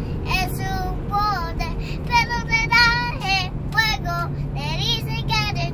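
A young girl singing in a high voice, with held, wavering notes broken by short breaths. A steady low hum of the vehicle runs underneath.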